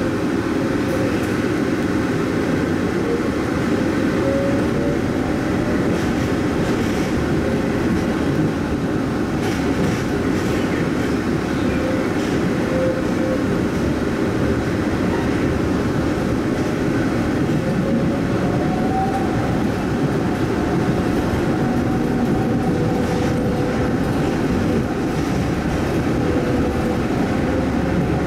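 Airport shuttle train running through a tunnel, heard from inside the car: a steady rumble of the car on its guideway, with a faint tone that drifts slowly up and down in pitch.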